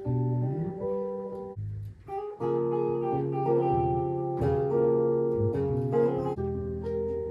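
Band music led by guitar: sustained chords that change every second or so. A low note slides upward near the start, and there is a short break about one and a half to two seconds in.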